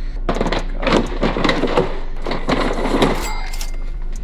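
White plastic storage drawer tower being handled and moved, with repeated knocks and clatter from its loose drawers and plastic frame.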